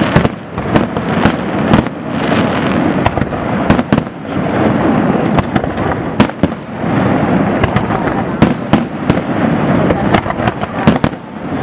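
Aerial fireworks display: many sharp shell bursts and bangs in quick succession over a continuous noise of overlapping explosions.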